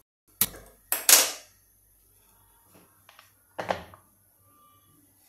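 Stainless-steel kitchen bowls and plates clinking and knocking as they are handled: a few sharp knocks in the first second and a half, the loudest about a second in, then fainter taps and one more knock near the four-second mark.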